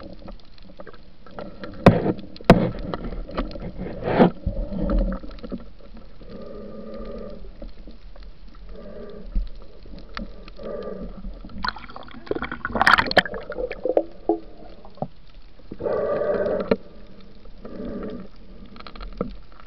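Underwater sound picked up by a submerged action camera: a muffled water noise bed with scattered sharp clicks and knocks. The loudest cluster of clicks comes about two-thirds of the way through, between several short muffled rushing bursts.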